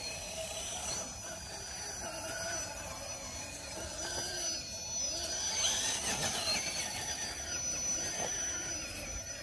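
Electric motor and gear drivetrain of an RC rock crawler on a GSPEED TGH-V3 Enduro chassis whining under throttle as it crawls up rock, the pitch rising and falling with the throttle.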